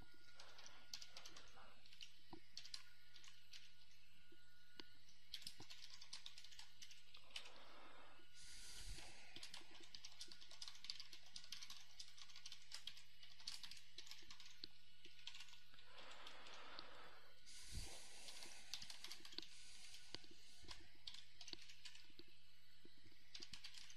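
Faint typing on a computer keyboard: irregular runs of quick key clicks as code is entered, over a steady low electrical hum, with two short soft rushes of noise about a third and two-thirds of the way through.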